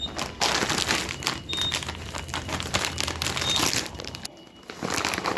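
Crinkly plastic snack bag of TGI Fridays Party Bites being handled and rustled, a dense run of crackling with a short lull near the end.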